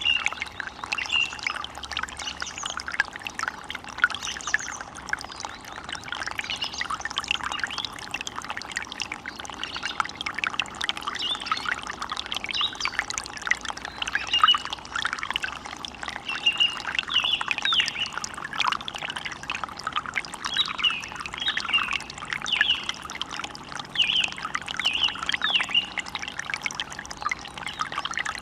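Forest ambience: running water trickling and splashing steadily, with birds giving short, repeated calls throughout.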